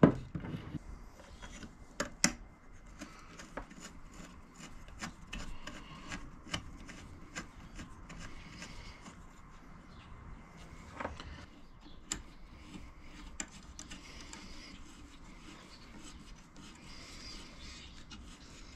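Hands fitting a steel saw-blade axe head to a wooden handle: rubbing and scraping of metal against wood, with scattered small clicks and knocks, the sharpest right at the start and about two seconds in.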